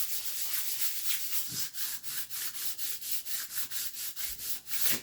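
Sandpaper rubbed back and forth by hand on the wooden toolbox panels in quick strokes, about four to five a second, stripping off the veneer and glue layer. It stops suddenly at the end.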